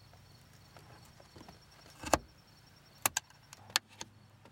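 Sharp clicks and snaps of the rear parcel-shelf retaining clips being pried out with a small screwdriver: one loud click about two seconds in, then three or four quicker ones near the end.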